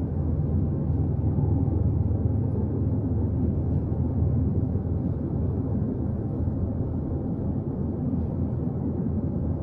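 Steady low rumble of wind buffeting the microphone outdoors, even and unbroken with no distinct events.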